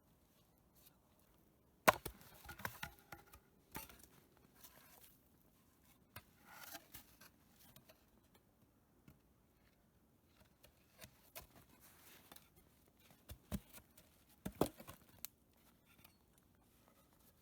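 Wood being split and worked by hand into thin boards: faint, scattered sharp knocks and cracks, the loudest about two seconds in and near the end, with a brief scraping rasp about six seconds in.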